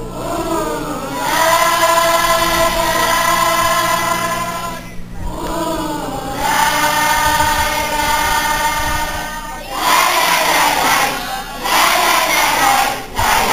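A large group of schoolchildren singing together, holding long notes in phrases with short breaks between them. In the last few seconds the sound turns into a rougher, noisier mass of voices.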